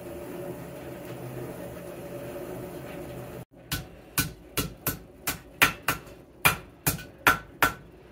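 A steady hum for about three and a half seconds, then it cuts off and a hand hammer strikes a red-hot steel horseshoe on an anvil about eleven times, two to three blows a second, each blow ringing briefly.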